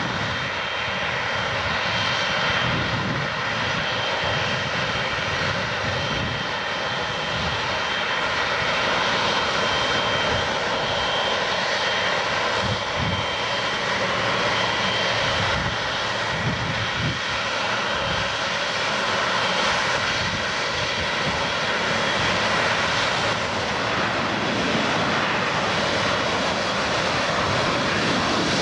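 Air Canada Boeing 777-300ER's twin GE90 turbofans running as the airliner taxis, a steady high whine over a broad rumble.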